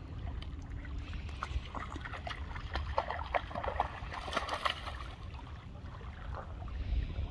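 A dog splashing as it wades through shallow lake water, a run of quick splashes from about one and a half to five seconds in, over a steady low rumble.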